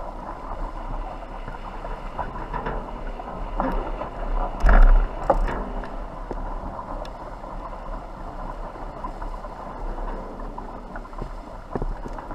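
Small sailboat under way, heard from a camera at the masthead: a steady rush of wind and water with light clicks from the rig, and one louder knock a little before halfway.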